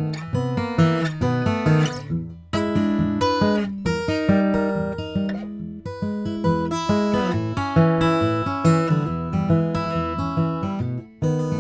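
Martin D-18 Modern Deluxe dreadnought acoustic guitar played fingerstyle: a flowing run of picked notes over ringing bass notes, with a brief break in the playing near the end.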